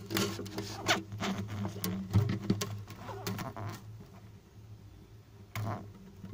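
Handling noise of a phone camera inside an acoustic guitar's body: scratchy rubbing and clicks against the wood and soundhole, busy for the first few seconds, then quieter with one sharp knock near the end, over a low steady hum.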